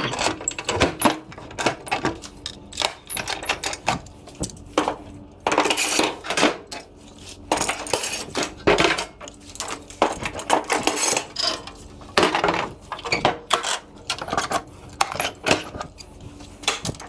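Metal woodworking clamps being loosened and pulled off a glued-up panel, clanking and rattling in a rapid, irregular run of sharp metallic knocks and clinks.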